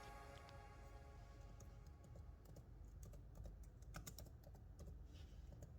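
Faint, irregular typing on a computer keyboard, the key clicks starting about a second and a half in, while soft background music fades out.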